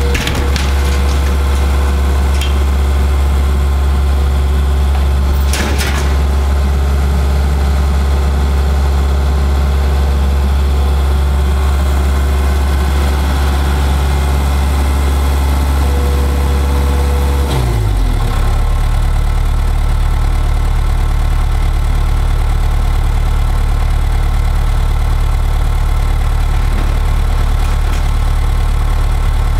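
Backhoe engine running steadily, then its engine note drops to a lower pitch about eighteen seconds in and runs on there. A brief clatter sounds around six seconds in.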